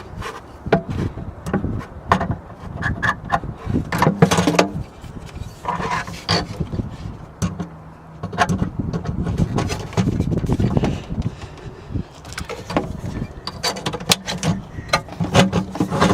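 Hand rivet gun being worked into a tight spot: scattered clicks, knocks and scraping of metal tool handling.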